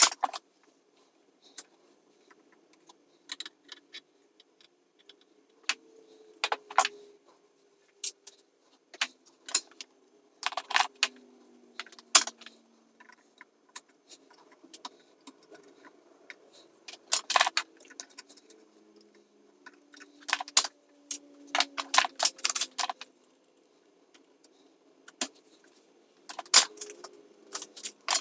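Sped-up clicks and metallic clinks of hand tools working inside a guitar amplifier chassis while resistors are being replaced. They come irregularly, sometimes in quick clusters of several.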